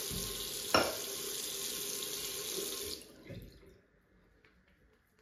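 Bathroom tap running into the sink, with a short knock about a second in; the water is shut off about three seconds in.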